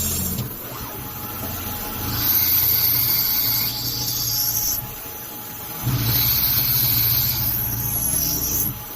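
Drilling and tapping machine running through its working cycle: steady high-pitched motor whines and a low drive hum that switch on and off abruptly in stages every one to three seconds.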